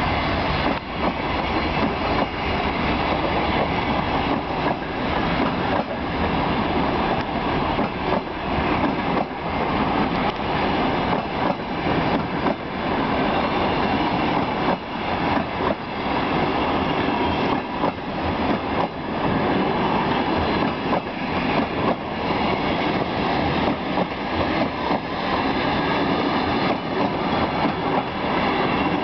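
Passenger coaches of a long, heavy train rolling past close by, with a steady rumble and repeated clacks of the wheels over the rail joints.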